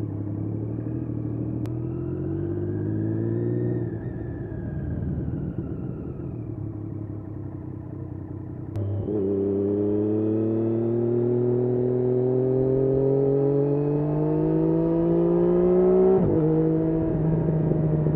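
Triumph Daytona 675's inline three-cylinder engine under way, rising in pitch as it accelerates and easing off about four seconds in. About nine seconds in it opens up again for a long, steady climb in revs, and near the end the pitch drops at an upshift.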